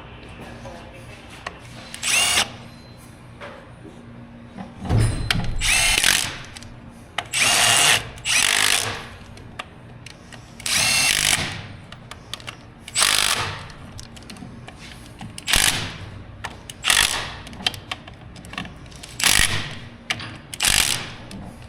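Handheld power tool run in about a dozen short bursts, each under a second except one longer run, as parts are fastened during a farm-machinery rebuild.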